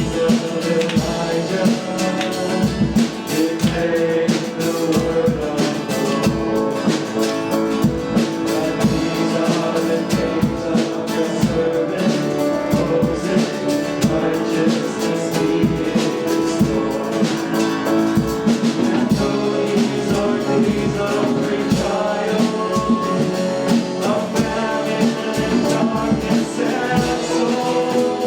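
Worship band playing a song, with guitar and drum kit keeping a steady beat.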